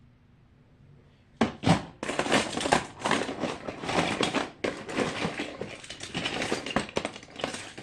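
Plastic fidget toys being rummaged and shuffled by hand, a busy clatter and crinkle that starts about a second and a half in and keeps on.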